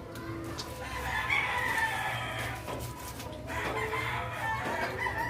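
Rooster crowing, two long drawn-out crows one after the other.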